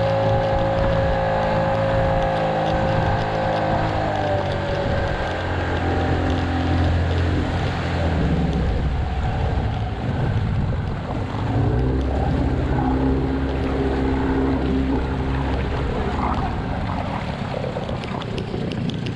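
Outboard motor running at speed, pushing a small inflatable boat, its engine note shifting in pitch a few times, over the rush of water churned up in the wake.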